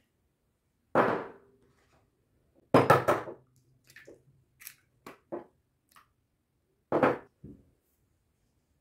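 Eggs being cracked and a small glass cup being handled: three sharp knocks, about a second in, around three seconds and around seven seconds, with lighter clicks of eggshell between.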